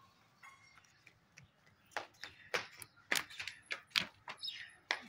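Short rustles and clicks of eggplant leaves and stems being handled, starting about two seconds in and coming irregularly, several a second.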